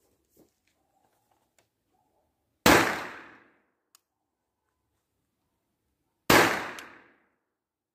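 Taurus PT-22 .22 LR pistol firing RWS R50 cartridges: two sharp shots about three and a half seconds apart, each trailing off over most of a second.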